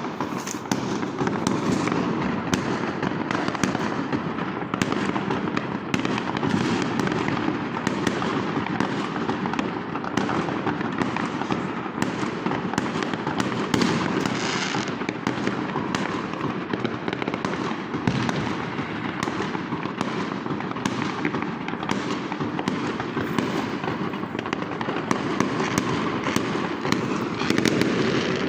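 Fireworks and firecrackers going off without pause: many overlapping bangs and crackles.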